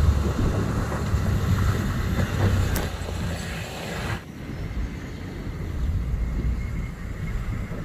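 Off-road 4x4 vehicle driving: a steady low engine rumble with road and wind noise. The hiss drops abruptly about four seconds in.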